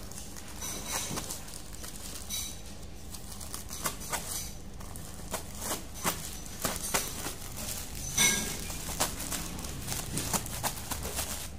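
Scissors cutting through a parcel's black plastic wrapping and packing tape: irregular snips with plastic crinkling and rustling, loudest a little past the middle.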